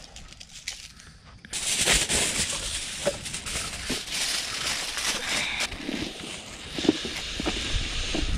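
Food frying in hot oil: a sizzle starts suddenly about one and a half seconds in and goes on with many sharp crackling pops.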